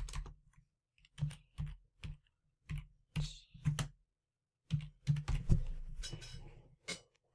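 Typing on a computer keyboard: single keystrokes and short runs of clicks with pauses between, as a file name is typed in.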